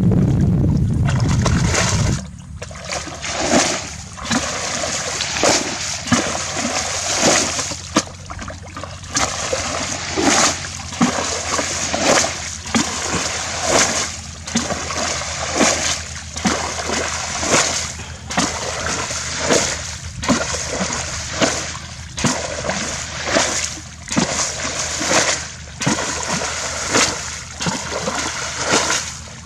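Water splashing and sloshing over and over, in short bursts every second or two, as hands work in shallow water. A low rumble runs for about the first two seconds.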